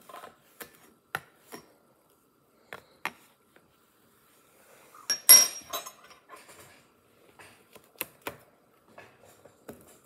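Plastic Lego bricks clicking and knocking as they are handled and pressed together, with a louder clatter about five seconds in.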